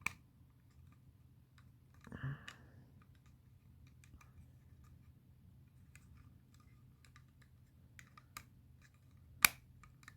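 Small plastic 3D puzzle pieces clicking and tapping faintly as they are handled and fitted together, with one sharp click near the end.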